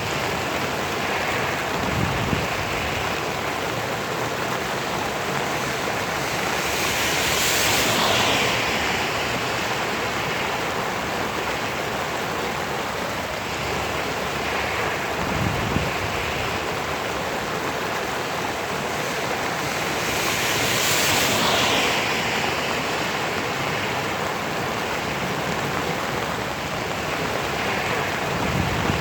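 Steady hiss of rain. It swells twice into a louder, brighter wash. A few soft low thumps sound under it.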